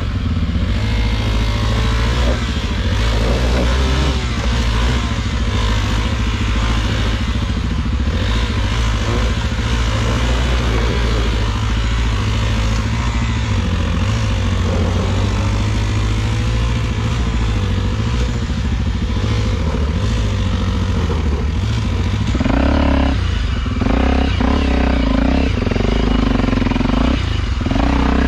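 Honda XR250 Tornado dirt bike's single-cylinder four-stroke engine pulling at low revs up a steep rocky climb, the revs rising and falling with the throttle, including two short pick-ups in the last third. A second dirt bike's engine runs close ahead.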